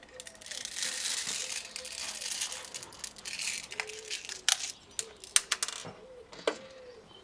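Airsoft BBs, 0.25 g biodegradable ones, rattling densely for about four seconds as they are poured and handled for loading into a magazine, followed by about half a dozen sharp plastic clicks.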